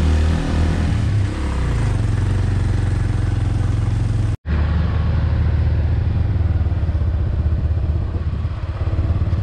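Motorcycle engine running steadily while riding, with road and wind noise; the sound cuts out for an instant about four and a half seconds in, then resumes.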